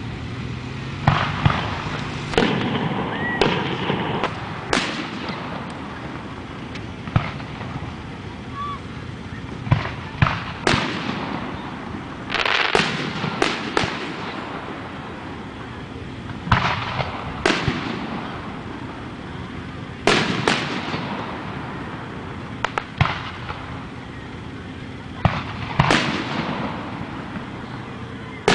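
Aerial fireworks shells launching and bursting overhead: a string of sharp booms, irregularly spaced from a fraction of a second to a few seconds apart, each dying away in an echo.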